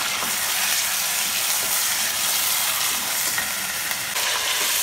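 Boneless chicken pieces and ginger-garlic paste sizzling steadily in hot oil in an aluminium pot, as the meat's released water fries off.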